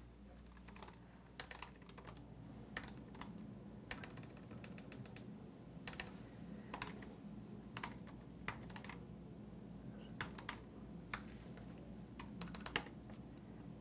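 Typing on a computer keyboard: irregular keystrokes in quick runs with short pauses between, fairly faint, over a low steady hum.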